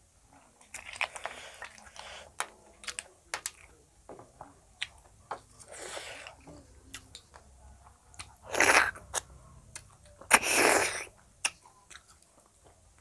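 Close-miked eating of snail curry with rice: chewing and crunching, with many sharp clicks of snail shells against a steel plate. There are several louder wet mouth-noise bursts, the biggest two in the second half.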